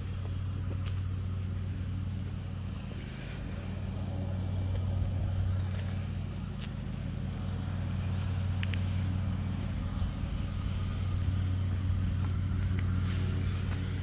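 Steady low engine hum, like a motor vehicle running, with a few faint clicks over it.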